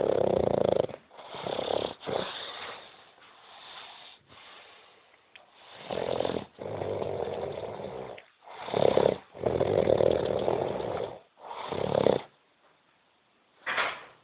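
A drunk man snoring heavily: loud, rasping snores of uneven length coming roughly every one to two seconds, some short and some drawn out over more than a second.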